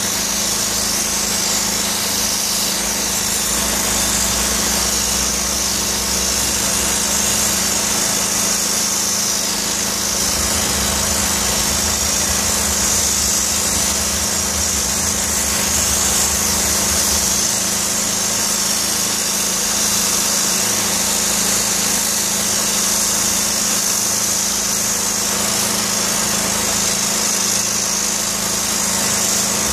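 DOFF steam cleaner jetting steam from a hand lance onto a stone window sill and brickwork: a steady loud hiss, over the even hum of the machine running.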